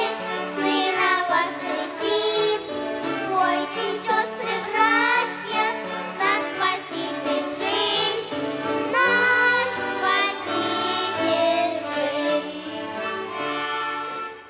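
Children singing a children's song accompanied by a violin ensemble; the music fades out at the very end.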